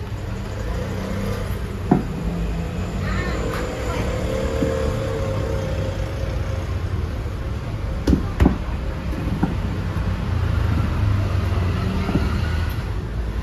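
A steady low rumble like vehicle or traffic noise, broken by a few sharp knocks: one about two seconds in and two close together around eight seconds.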